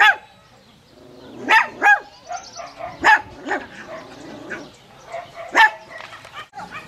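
A dog barking: about six short barks at uneven spacing, with quieter sounds between them.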